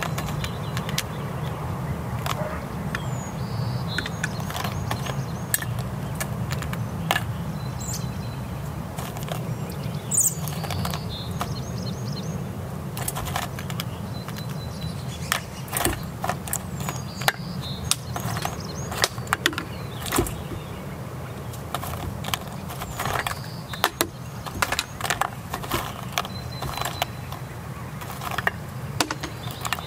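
In-shell peanuts clicking and rattling against a stainless steel bowl as a Steller's jay picks through them and grips the rim: irregular sharp clicks and knocks, busier in the second half. A steady low hum runs underneath.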